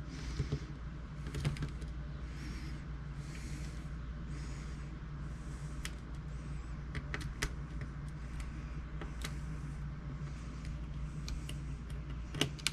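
Small sharp clicks and taps from handling the plastic laptop screen parts and screwdriver, over a steady low hum, with breathing close to the microphone.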